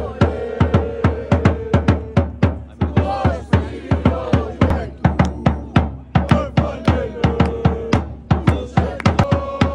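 A supporters' marching drum beaten with mallets in a steady, fast beat, several strokes a second.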